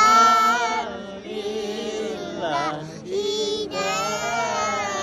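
A young girl's high voice chanting Arabic devotional verses in sung phrases, holding a long note at the start and breaking off briefly between phrases.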